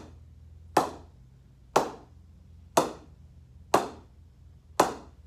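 A new SG cricket bat's face being struck, with sharp wooden knocks evenly spaced about a second apart, as the bat is tested for its ping.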